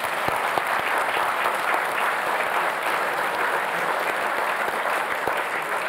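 Large audience applauding: many hands clapping at a steady level.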